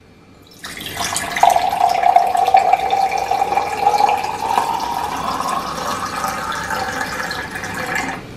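Water poured in a steady stream into a clear drinking glass, splashing and gurgling. A tone rises slowly in pitch as the glass fills, and the pour stops shortly before the end.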